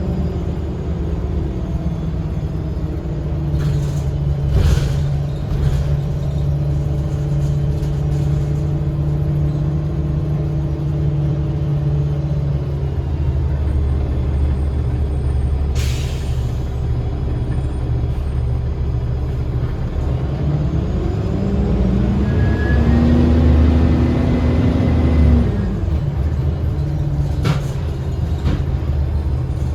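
Cummins ISL diesel engine of a 2010 Gillig BRT transit bus, heard from inside the bus, running steadily, then pulling away about two-thirds through with its pitch rising for a few seconds before it drops off. Short air hisses from the bus's air system come a few times.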